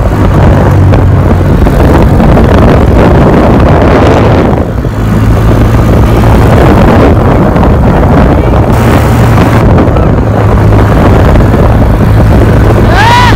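Four-wheeler engine running steadily under way, with loud wind buffeting the microphone.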